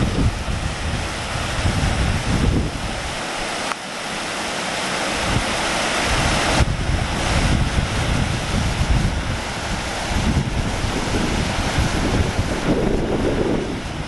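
Spring-fed stream rushing and splashing over rock ledges in small rapids, a steady wash of white water. Wind buffets the microphone in uneven low gusts.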